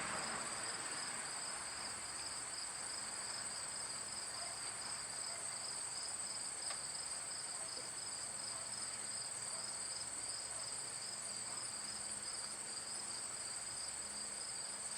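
Crickets trilling in a steady, unbroken high-pitched chorus, with a faint low hum beneath.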